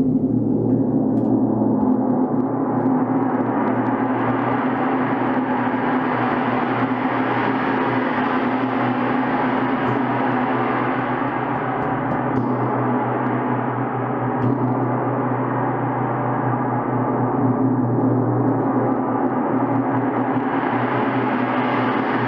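Large hanging gong played continuously with a mallet. Its many ringing tones merge into one sustained wash that swells during the first half, eases, and builds again near the end.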